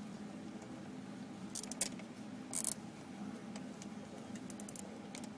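A plastic zip tie being pulled through its catch: short ratcheting clicks and rasps, with a longer rasp about two and a half seconds in and a quick run of ticks near the end, over a low steady hum.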